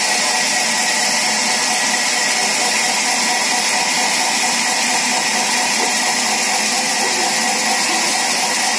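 Large belt-driven vertical band saw running steadily as wood is fed through the blade: a continuous high whine and hiss.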